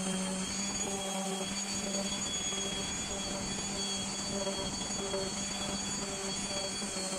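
Electric random orbital sander running steadily while sanding a hardwood mallet, first the head and then the handle: an even motor hum with a thin high whine.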